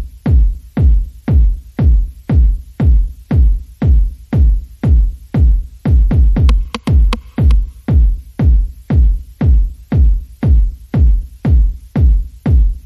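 Background electronic music with a steady kick-drum beat, about two beats a second.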